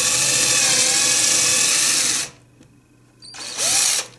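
Electric drill boring a dowel hole into the end grain of a narrow wooden slat. It runs steadily for about two seconds and stops, then gives one short burst of about a second near the end, the motor speeding up and winding down.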